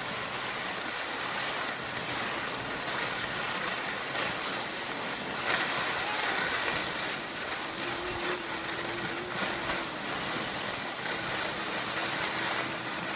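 Skis sliding over packed snow, with wind rushing over the microphone: a steady hiss.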